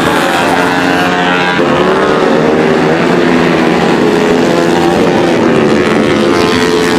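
Several Honda CRF150L supermoto motorcycles, bored out to 180cc, racing at high revs; their single-cylinder engines overlap, each pitch rising and falling.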